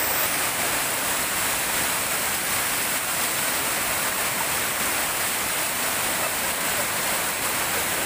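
Small waterfall pouring over rocks, heard close by as a steady rush of falling water.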